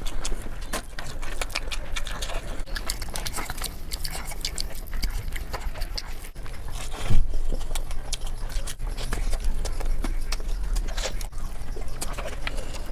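Close-miked eating sounds: a person chewing and smacking food, with many small wet clicks over a steady low hum, and one louder knock about seven seconds in.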